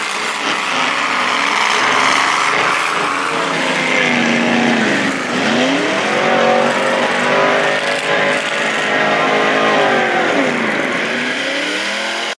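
Mud truck engine running hard at high revs, its pitch dipping and then climbing back twice, about halfway through and again near the end, over a constant hiss of spinning tyres and flung mud.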